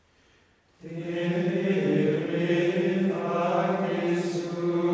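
Gregorian chant sung by a choir, starting about a second in with long held notes.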